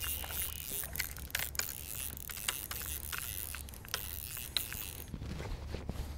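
Fly reel being wound by hand: short, irregular clicks and scrapes over a steady low rumble. About five seconds in, the clicks give way to low thuds.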